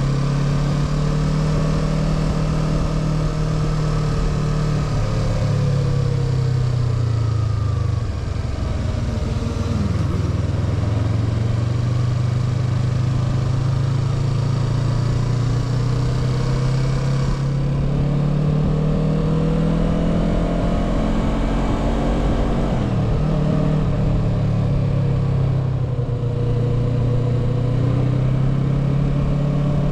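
Motorcycle engine heard from the rider's seat while riding through city traffic. Its note falls and rises several times as the bike slows and accelerates, over steady wind and road noise.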